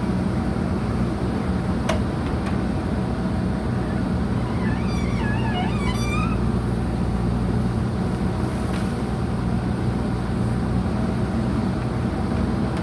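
Diesel engine of a JCB 3DX backhoe loader running steadily, with a single sharp click about two seconds in and a brief high warbling chirp around five seconds in.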